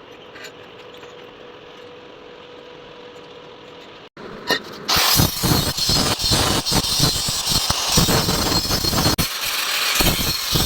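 Arc welding: after a faint steady hum, the arc strikes about four seconds in and crackles loudly and unevenly until the end.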